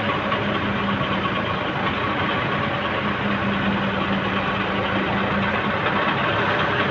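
Diesel truck engine idling steadily while it powers a truck-mounted hydraulic crane lowering a load, with a low steady hum that stops shortly before the end.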